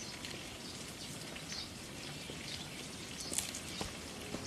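Giant panda chewing bamboo: irregular crackling and snapping bites, a few sharper cracks about three seconds in, over a steady outdoor hiss.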